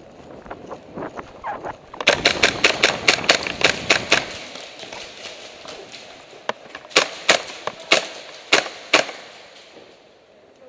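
Airsoft gunfire: a rapid string of sharp cracks, about seven a second, begins about two seconds in and lasts about two seconds, followed by single cracks roughly half a second apart.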